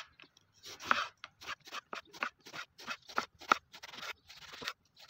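Kitchen knife slicing an eggplant into rounds on a wooden cutting board: a steady run of cuts, about three a second, the blade meeting the board at each stroke.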